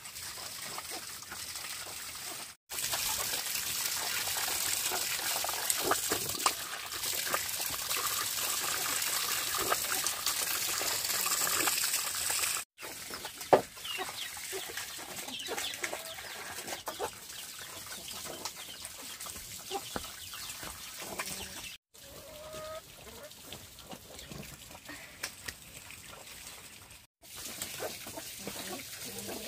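Chickens clucking, with a stretch of louder running, splashing water noise in the first third, broken by several abrupt edit cuts.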